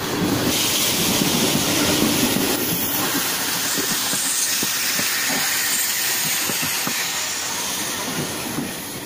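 Electric suburban local train running past below, a steady rush of wheel-and-rail noise with repeated clacks of the wheels over rail joints; it starts to fade near the end as the last coach goes by.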